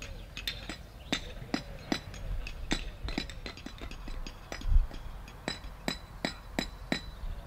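Clay paving bricks clinking and knocking sharply, irregularly at about two a second, as they are laid by hand, with one dull thump near the middle.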